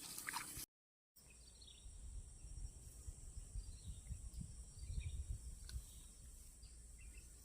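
Steady high-pitched insect drone over low wind rumble on the microphone, with a few faint bird chirps; a sudden brief dropout about a second in.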